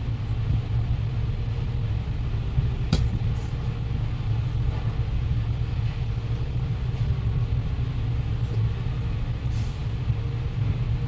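Steady low rumble of background noise, with one sharp click about three seconds in.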